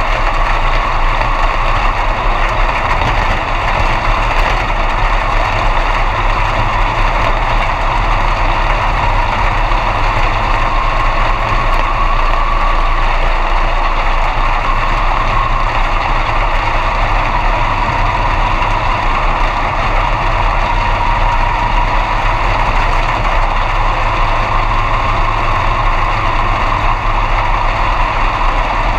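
B-Mod dirt-track race car's engine running steadily, heard from inside the cockpit, its pitch drifting only slightly with no hard revving.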